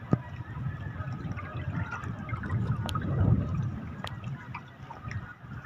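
Seawater lapping and gurgling against the side of a boat, uneven and swelling about three seconds in, with a few sharp clicks.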